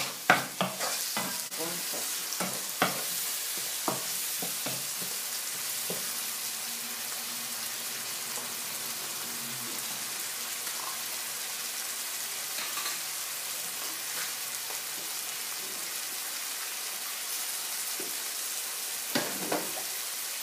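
Onions and yellow and green peppers sizzling steadily in a non-stick frying pan. A wooden spoon scrapes and knocks against the pan several times in the first few seconds and a couple of times near the end.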